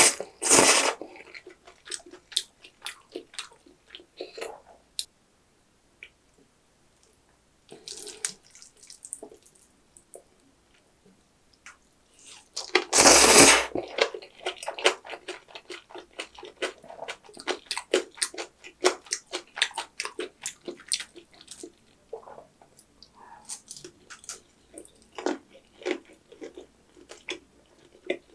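A person slurping jajang ramen noodles in black-bean sauce, one loud slurp right at the start and another about halfway through. Between the slurps come many short, wet chewing and smacking sounds from a full mouth.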